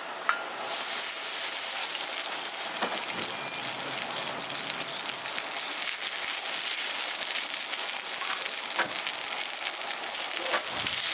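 Hot oil sizzling in a cast-iron skillet on a gas camping stove as cooked white rice is spooned in. The sizzle swells suddenly as the first rice hits the pan, and a metal spoon clicks against the pan a few times.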